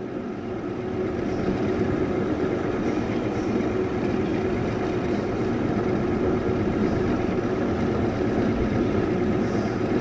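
Ceiling-fan motor running as a Bedini SG monopole pulse motor, spinning its magnet wheel steadily: a continuous whir with a low hum running through it.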